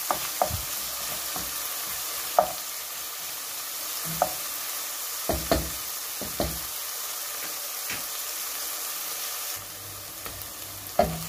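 Diced beef, onion and green chili peppers sizzling in oil in a nonstick pot, stirred with a wooden spoon that knocks and scrapes against the pot every second or two. The sizzle drops a little near the end.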